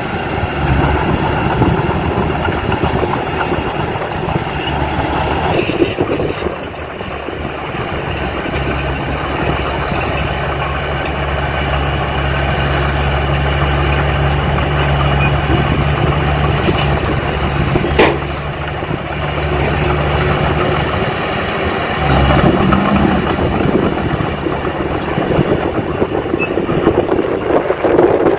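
Heavy diesel engine of earthmoving machinery running steadily. Its note changes about six seconds in and again near twenty-two seconds, and there is a single sharp click a little past halfway.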